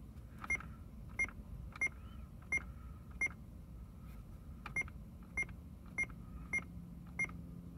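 Short electronic beeps from the Corvette C6 Z06's instrument cluster, one for each button press as the driver information display steps through its pages. There are five beeps at a steady pace, a pause of about a second and a half, then five more.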